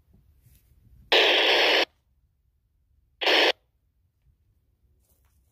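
Two bursts of FM radio static from a Baofeng A58S handheld tuned to the SO-50 satellite downlink. The first is under a second long; the second, about two seconds later, is shorter. Both are plain hiss with no voice in them.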